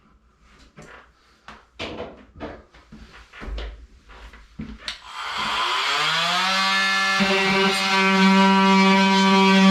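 A few handling clicks and knocks, then an electric drill motor starts about five seconds in. It whines up to speed over a second or so and runs steady and loud.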